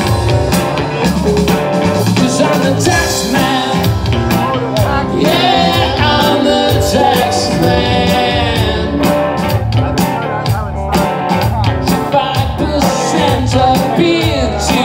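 Live rock band playing: electric guitars, bass and drums with a sung vocal line, at a steady beat.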